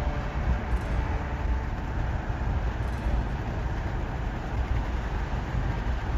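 Steady low rumble and hiss of a car driving, road and engine noise with no distinct events.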